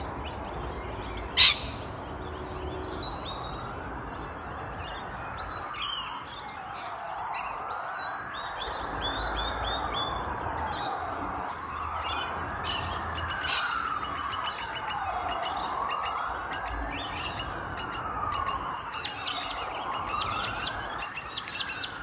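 Emergency vehicle siren in a slow wail, its pitch rising and falling about every four seconds, starting about three seconds in. Small birds chirp over it throughout, and a single sharp crack sounds about a second and a half in.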